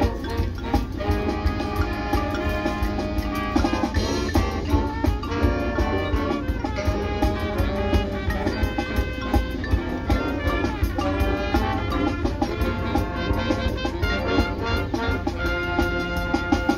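Marching band playing its field show: brass chords over drums and percussion.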